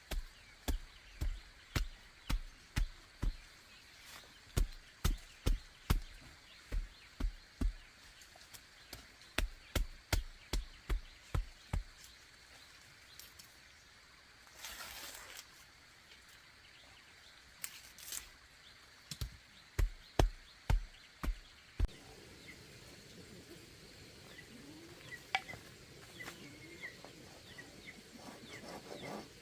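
Repeated sharp blows of a tool striking bamboo, about two a second, pausing midway and resuming briefly, with birds chirping faintly near the end.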